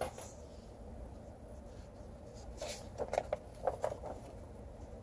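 Pages of a paperback picture book being turned by hand: a short crackling rustle of paper from about two and a half to four seconds in, over a faint steady room hum.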